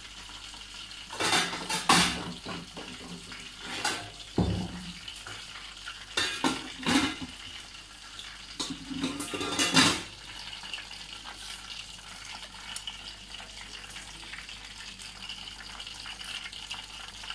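Plates and serving dishes clattering and knocking in short bursts through the first ten seconds, then a faint steady hiss.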